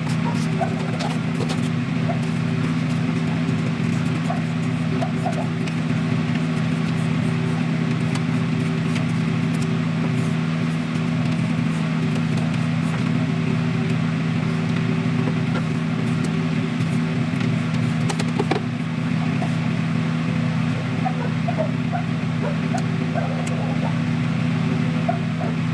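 A steady low mechanical hum, unchanging throughout, with faint short chirps sounding above it now and then.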